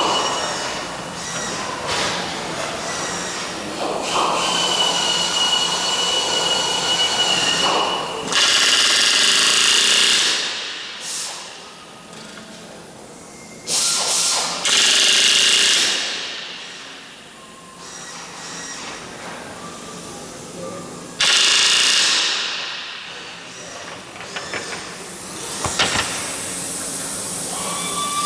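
Workshop power tools working on an aircraft airframe, running in several separate bursts of a few seconds each with quieter gaps between them; a steady high whine runs through the first part.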